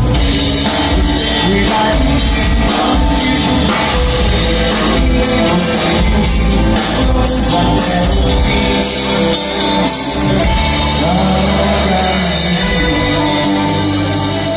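Band music with drums, guitar and singing, loud and steady, easing off slightly near the end.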